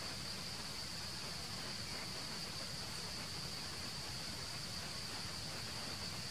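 Steady high-pitched drone of insects in forest, one unbroken whine over a background hiss, with no animal calls.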